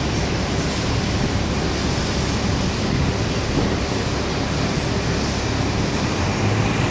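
Steady rumble and hiss of road traffic, with no distinct events.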